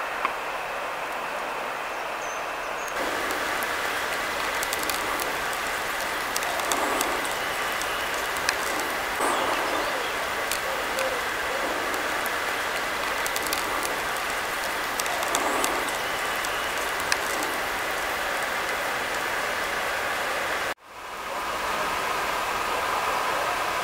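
Steady rushing of running water. It cuts out for a moment near the end and fades back in.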